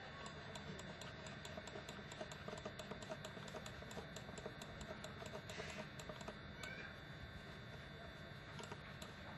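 Faint, rapid light clicking at a computer, about four clicks a second, thinning out after about seven seconds, with a brief soft hiss about halfway through.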